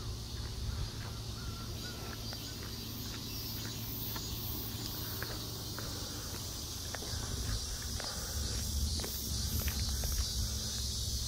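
Footsteps on a packed-earth path, with insects buzzing in a steady, high, pulsing drone. A low rumble underneath grows louder in the second half.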